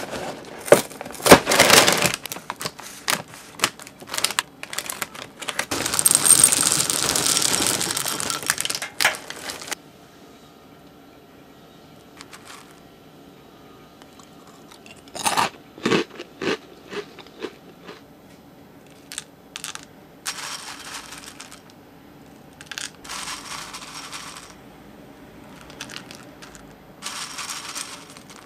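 Cardboard cereal box and its plastic liner being opened, with sharp crackles and tearing. A few seconds later comes a dense rattle of Froot Loops pieces poured into a small glass bowl. Short rustles and light taps follow later.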